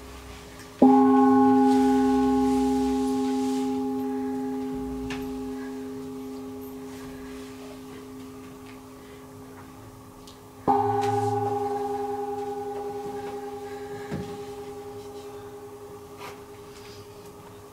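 A singing bowl is struck twice, about ten seconds apart. Each strike rings on in a steady tone with a few higher overtones and fades slowly.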